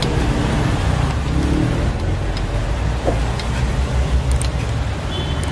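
A steady low rumble with a few faint, light clicks.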